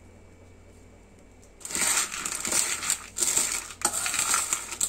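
Peanuts with chopped onion, tomato and green chilli being mixed by hand in a stainless steel bowl: the nuts rattle and scrape against the steel with sharp clicks. The mixing starts about a second and a half in and stays loud.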